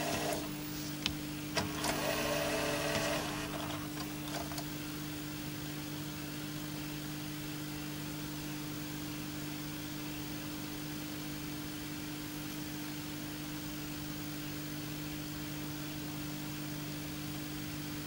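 Panasonic NV-F65 VHS video recorder mechanism giving a few sharp clicks and a short whirr in the first few seconds as a button is pressed, then running steadily in playback with a low, even hum.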